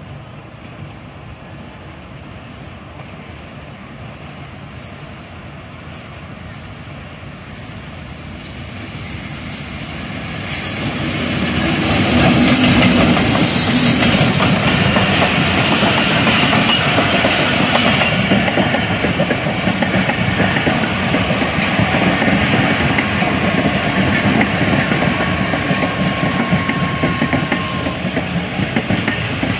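Diesel-hauled passenger train approaching, growing louder over the first ten seconds or so, then passing close by with a steady clatter of wheels over the rail joints as its coaches roll past.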